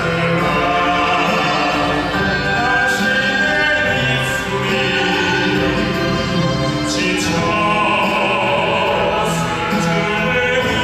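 Male vocal quartet singing together in an operatic classical-crossover style, with held notes, accompanied by a Korean traditional (gugak) orchestra.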